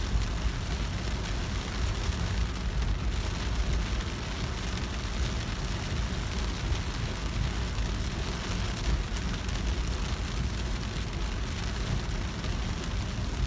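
Rain pattering on a car's windshield and roof, heard from inside the cabin, over the steady low rumble of the car driving on a wet road.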